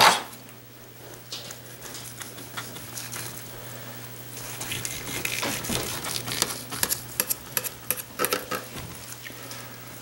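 Serrated knife sawing back and forth through a grilled turkey breast, with crackly scraping and quick clicks against a plastic cutting board, busiest in the second half.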